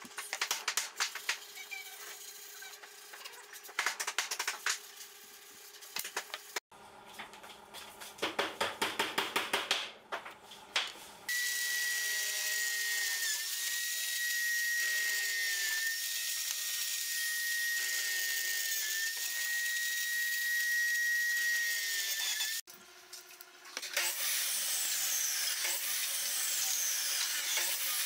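Electric drill in a homemade wooden drill-press stand running for about eleven seconds as it bores into a small pine workpiece, with a steady high whine whose pitch dips briefly a few times as the bit bites. Before it come clicks from wood being handled and a run of quick, even strokes, and near the end a second stretch of noisy tool sound.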